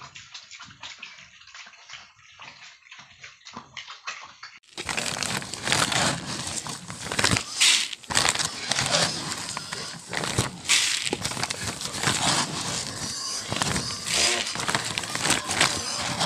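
A piglet eating feed from a trough, with wet smacking and slurping and rapid small clicks of chewing. About five seconds in this gives way abruptly to louder, dense rustling and rattling as dry feed pellets are handled in a plastic bowl.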